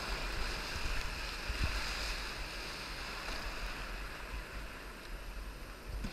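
Breaking surf and whitewater rushing around a sea kayak, with wind rumbling on the microphone; the rush slowly fades.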